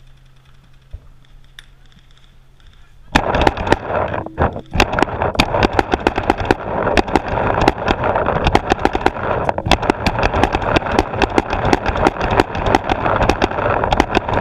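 Paintball markers firing rapidly: after about three seconds of quiet, a sudden burst of shots begins and keeps going at several shots a second with no letup.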